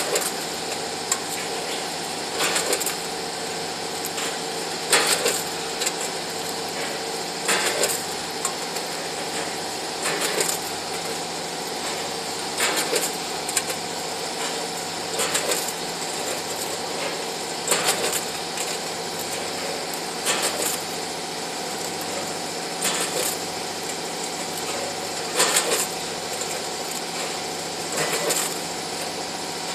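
Conveyor and automatic packing line for plastic tubes running: a steady mechanical hum with a short clatter repeating about every two and a half seconds, the machine's working cycle.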